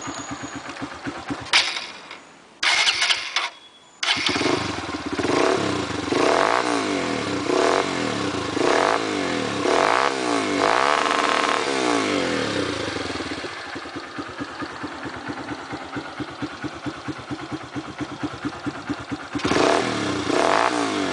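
Honda CG 150 single-cylinder motorcycle engine with a Roncar aftermarket exhaust, blipped up to high revs again and again and cut by the rev limiter. It falls back to idle for several seconds before revving again near the end.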